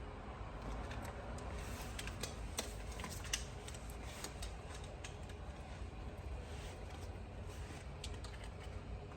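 Small scattered plastic clicks and taps as steering-wheel trim and wiring connectors are worked loose by hand, with two sharper clicks about two and a half and three and a half seconds in, over a steady low hum.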